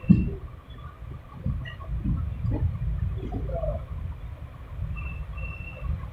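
Steady low rumble of a passenger train coach running along the track, heard from its open doorway, with wind buffeting the microphone.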